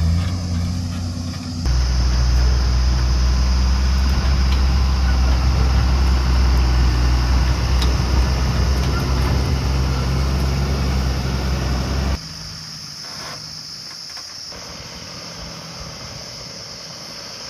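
Heavy diesel engine running steadily, cutting in abruptly about a second and a half in and cutting out abruptly after about twelve seconds. After that only a quieter background remains, with a steady high-pitched hiss throughout.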